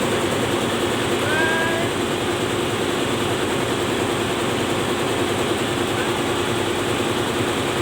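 A tugboat's main engines running with a steady, even drone and a constant hum.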